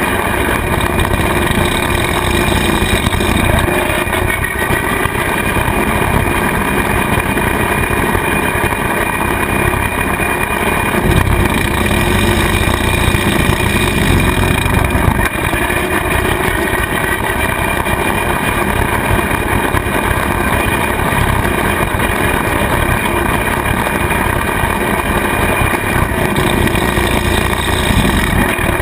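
Kubota tractor engine running steadily, driving a rotary cutter (bush hog) that is mowing pasture grass.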